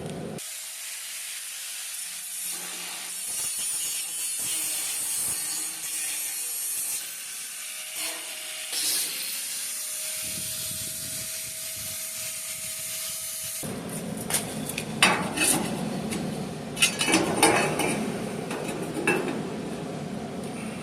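A saw cutting a fuel access hole through the truck's flatbed, a steady hissing cut. After about two-thirds it changes to fuller, louder sound with a run of knocks and clatter.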